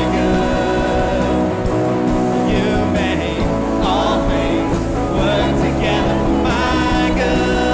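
Live worship band music with singing over guitar, bass and drums.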